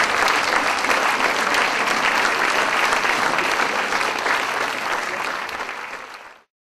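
Theatre audience applauding steadily, then the applause fades out and cuts to silence near the end.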